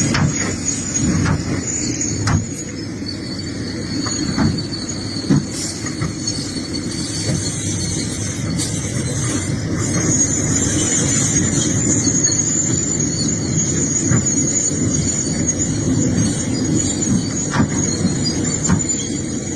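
Excavator digging rocky soil: its diesel engine runs steadily under load, with a thin, high, steady squeal over it and scattered sharp knocks.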